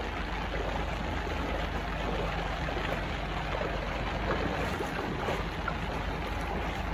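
Shallow floodwater rushing along a street and pavement, a steady noise of running water.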